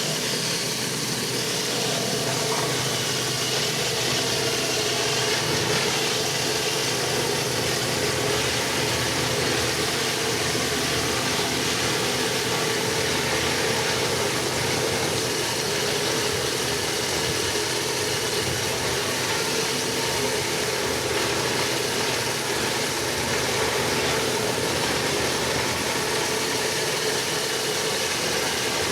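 Pressure washer engine running steadily under a constant hiss of water spray.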